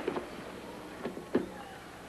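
A gymnast's feet landing and stepping on a balance beam: a few short, dull thuds, the loudest a little past a second in.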